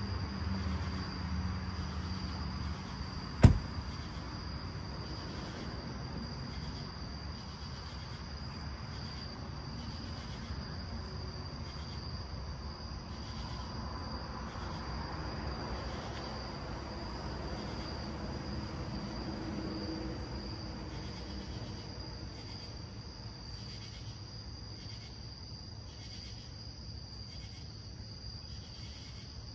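Night insects trilling steadily at a high pitch over a low rumble, with one sharp knock about three and a half seconds in.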